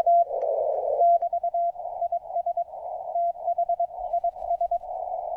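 Morse code (CW) from an HF amateur radio receiver: a 700 Hz tone keyed in dots and dashes, heard through a speaker tuned to 700 Hz. Band static is squeezed into a narrow hiss around the tone, with a louder rush of it about half a second in, which is the speaker cutting down the static and noise on the band.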